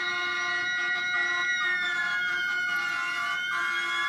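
Emergency vehicle siren wailing, one tone sliding slowly down in pitch and back up again, over several steady held tones.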